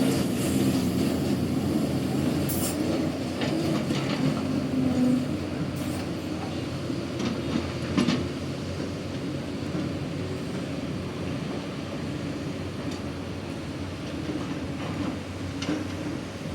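Excavator's diesel engine running steadily with a low drone while digging soil, with a few sharp clanks from the machine and bucket, the loudest about halfway through.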